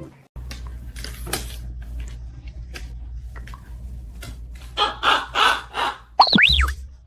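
Parrot squawking three times in short harsh calls, then giving a quick whistle that rises and falls, over a steady low hum.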